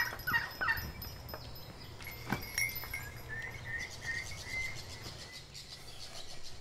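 Birds chirping: a few quick falling chirps in the first second, then a run of short, high, repeated notes for a few seconds, over a low steady hum. A single sharp knock comes a little after two seconds in, and a faint high buzz joins about four seconds in.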